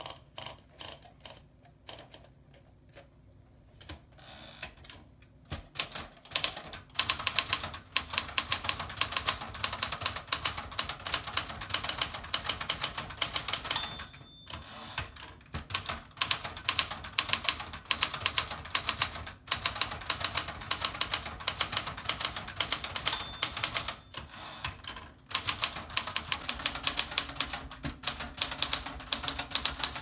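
1973 Smith-Corona Sterling manual portable typewriter: a few scattered clicks as paper is fed in, then fast typing from about six seconds in, keys striking in quick runs broken by a few short pauses. A brief ring sounds twice, from the margin bell near the end of a line.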